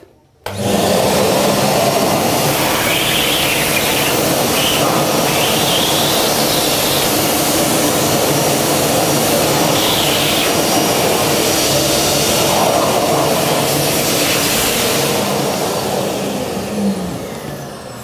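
Kärcher WD 2.250 wet-and-dry vacuum cleaner with a 1200 W motor, switched on about half a second in and running steadily while sucking up sawdust from carpet through its hose. The sound eases off over the last few seconds.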